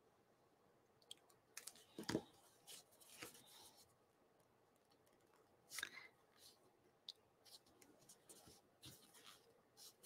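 Mostly near silence, broken by a few faint rustles and taps of cardstock being handled and pressed down by hand, the most noticeable about two seconds in and again near six seconds.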